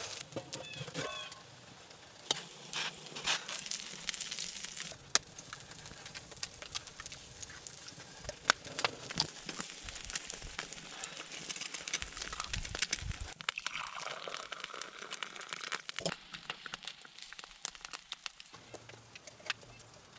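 Campfire crackling with many sharp pops, and eggs sizzling and frying on a flat rock heated over the fire.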